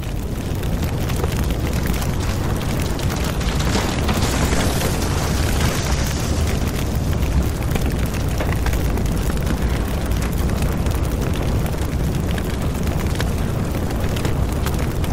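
A large wildfire burning: a steady deep rumble with crackling throughout.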